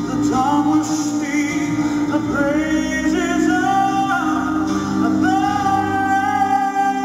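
A male singer sings a climbing vocal line over backing music, then holds one long, high note from about five seconds in.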